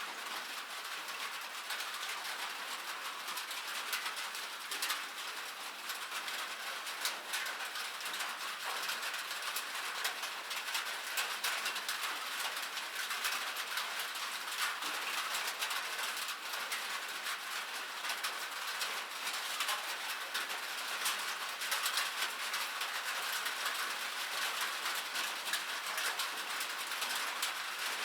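Rain falling on a metal surface: a steady, dense patter of countless small drop ticks, thin and high with no deep tones.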